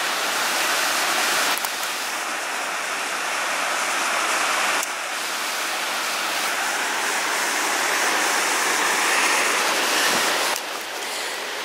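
The East Lyn River rushing over boulders and small cascades: a steady, unbroken sound of white water. It drops a little in level near the end.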